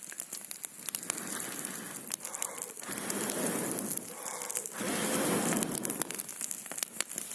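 Wood campfire crackling with many sharp pops, over a rushing noise that swells up and fades three times.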